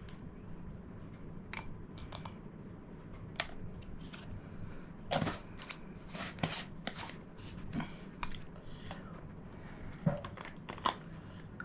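Small scattered clicks, taps and rustles of a spoon and powder jar being handled while spoonfuls of Softovac laxative powder are measured out.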